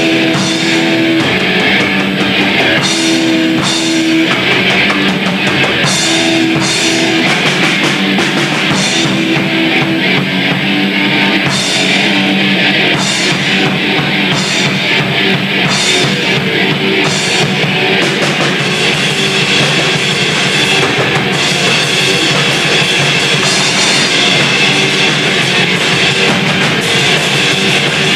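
Grindcore band rehearsing: distorted electric guitar and a drum kit with crashing cymbals, playing loudly without a break.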